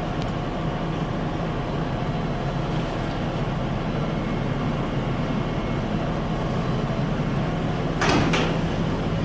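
Steady mechanical hum of shop machinery, with a low drone. About 8 seconds in come two short, loud noises in quick succession.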